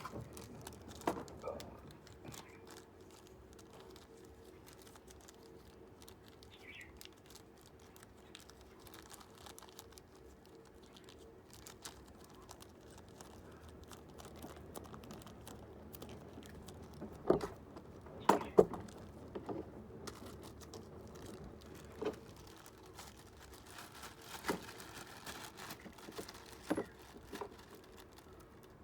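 Scattered clicks, light knocks and rattles of small hard parts being handled, with a few louder knocks in the second half, over a faint steady hum.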